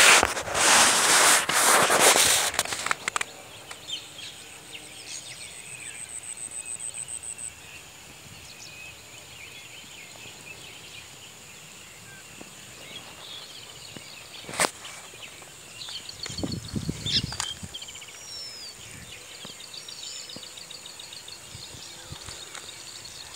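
Open-air ambience with birds chirping and calling now and then in short, high, sweeping notes. It follows a loud rough rustle on the microphone during the first three seconds.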